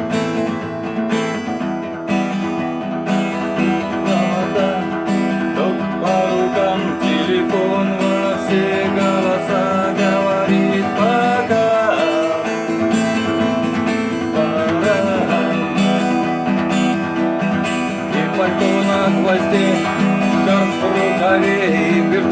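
Instrumental passage of a song: acoustic guitar strumming, with a melody line played over it from about six seconds in.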